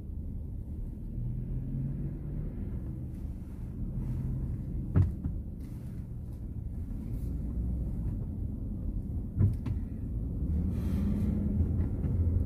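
GMC Yukon XL running with a steady low rumble. Two short sharp knocks come about five and nine and a half seconds in.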